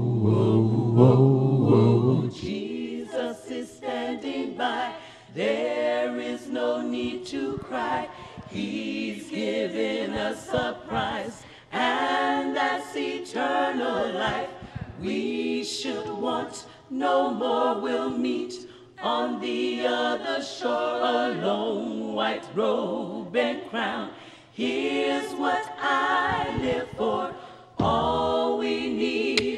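Women's a cappella gospel group singing in harmony without instruments, in phrases of a second or two with short breaks between them.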